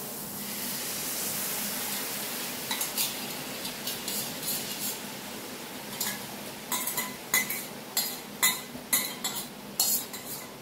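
Sauce mixture poured into a hot pan of stir-fried vegetables and chicken sizzles. A utensil then stirs it, clanking and scraping against the pan in sharp knocks, close to two a second near the end.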